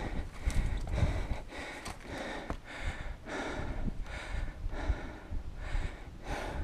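A climber's hard, heavy breathing from exertion on a steep rock scramble, breath after breath about once a second, over a low rumble.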